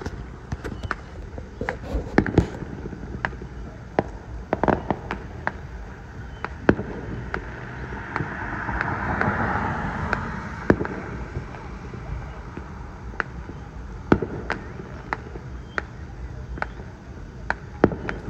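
Fireworks going off in an irregular series of sharp bangs and pops, a few close together and some louder than others, with a hiss that swells and fades about halfway through.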